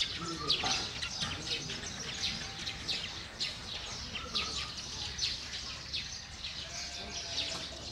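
Birds chirping busily, many short high calls following one another without a break.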